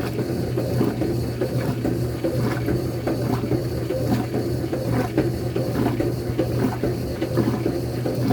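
Koblenz 20 kg agitator washing machine running: a steady motor hum under a rough, uneven churning clatter from the agitator and its steel gear transmission.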